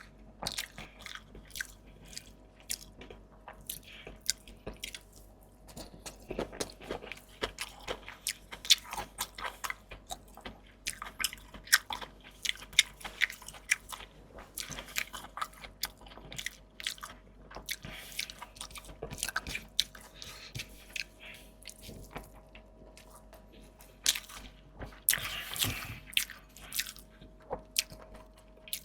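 A person biting and chewing crunchy food close to the microphone, with many irregular crisp crunches.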